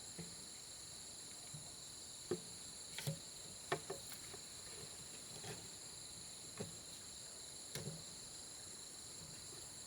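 Steady, high-pitched chorus of insects such as crickets, with about eight scattered light knocks or taps, the loudest a little over two seconds in and a little under four seconds in.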